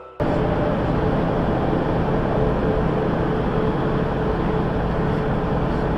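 Steady engine and road noise inside a semi-truck's cab cruising at highway speed, with a faint steady hum; it cuts in abruptly just after the start.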